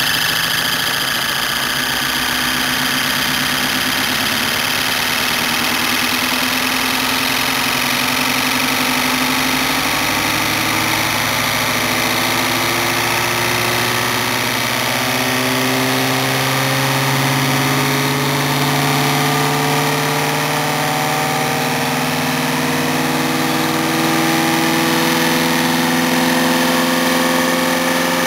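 Homemade iron-core axial flux pulse motor running, its blue rotor disc spinning past the coil stator: a steady electric hum and whine that slowly rises in pitch, over a constant hiss.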